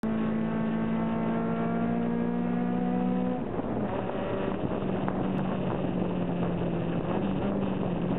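Honda B16A four-cylinder VTEC engine of an EG Civic race car heard from inside the cabin, revving up under power. About three and a half seconds in the pitch drops and then holds lower and steady, with road and tyre noise underneath.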